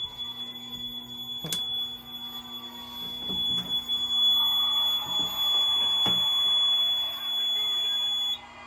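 Fire alarm sounding one steady high-pitched tone that cuts off abruptly near the end, with a few sharp clicks along the way.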